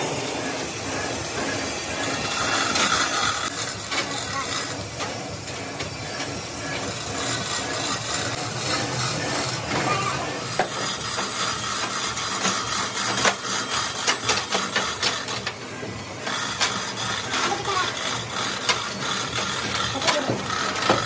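Steel lifting chains rattling and clinking against a large steel worm shaft as it is rigged and hoisted, with scattered sharp metal knocks, a few louder ones in the second half.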